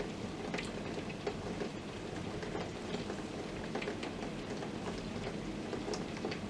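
Heavy thunderstorm rain falling steadily, with scattered sharp taps of drops striking nearby surfaces.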